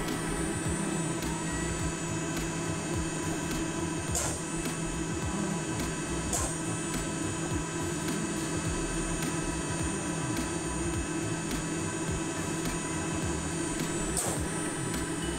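CHIKO fume dust collector running: its blower motor gives a steady hum and rush of air, with three light clicks along the way.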